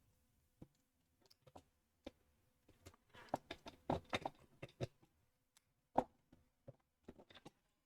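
Plastic Lego Technic parts clicking and knocking as they are handled and pressed together: scattered short clicks, a busy run about three to five seconds in, and a sharper click about six seconds in.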